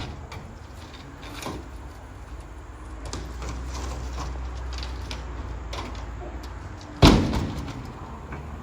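A single loud slam about seven seconds in that dies away over about a second. Before it are a low steady rumble and scattered small knocks.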